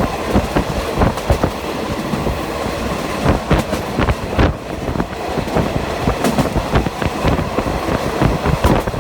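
A train passing close by: a steady rumble with an irregular string of loud knocks as the wheels clatter over the rail joints.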